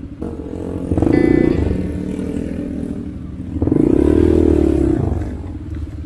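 Dirt bike engines running, with two louder throttle revs, about a second in and again from about three and a half seconds, the second rising and falling in pitch.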